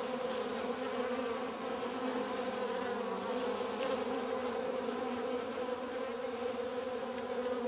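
Steady hum of many honeybees flying around, one low buzzing pitch with overtones that holds level throughout.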